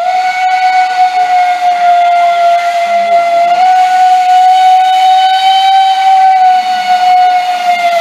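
Steam locomotive's whistle blowing one long, loud, steady note, its pitch sagging slightly as the steam tails off near the end.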